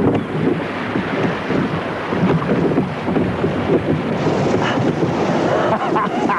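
Wind buffeting the microphone over a continuous rush of water from a boat under way at sea.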